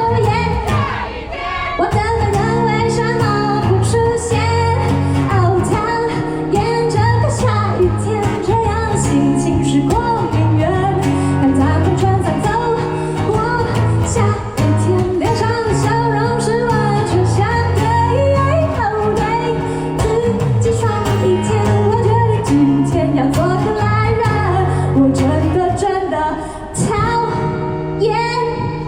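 Pop song with a woman singing over a band, steady bass notes held beneath the vocal melody.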